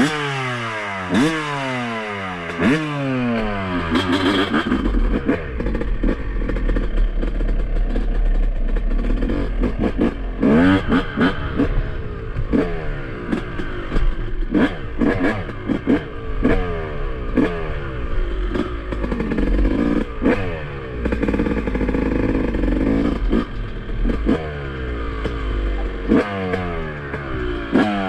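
2007 Yamaha YZ250's single-cylinder two-stroke engine revved again and again in sharp blips, the pitch falling after each, with a few longer stretches held at higher revs.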